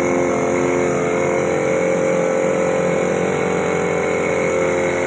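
Corded handheld electric power tool, such as an angle grinder, running at a steady high speed on a bare steel motorcycle frame: a constant motor whine with a hiss over it.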